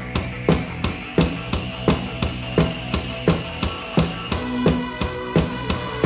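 A new-wave rock band playing live in an instrumental passage: a steady drum beat of about three hits a second under bass guitar notes and sustained high keyboard tones.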